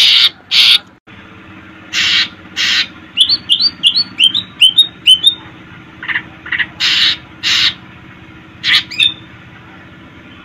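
Cucak ijo (green leafbird) singing: loud, harsh, scratchy notes in pairs, broken around the middle by a quick run of about nine clear, bending chirps. Faint steady low hum underneath.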